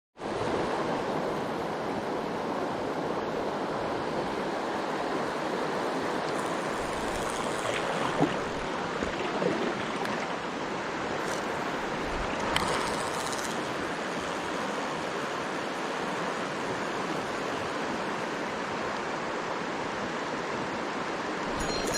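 Mountain stream rushing steadily over rocks, with a couple of brief knocks partway through.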